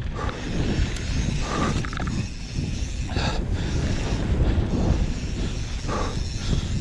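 Mountain bike riding fast down a dirt trail: tyres rolling on dirt and the bike rattling, under a steady wind rumble on the camera microphone, with a few short clatters.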